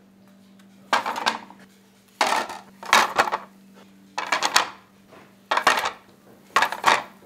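Kitchenware clattering in six short bursts of quick clinks, about a second apart, over a faint steady low hum.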